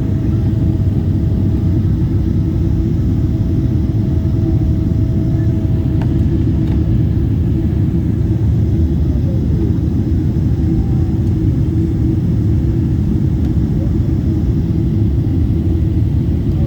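Boeing 777 cabin noise on approach: a loud, steady low rumble of the jet engines and airflow, with a faint steady whine that stops about six seconds in.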